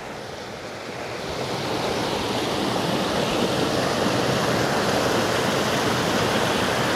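Creek water rushing, a steady rush that grows louder over the first two seconds and then holds.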